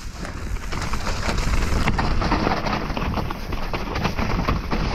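Trek Remedy 7 mountain bike on 27.5+ tyres ridden over a rough trail: tyres and frame clatter with a dense run of clicks and knocks over a steady low rumble, which gets a little louder about a second in.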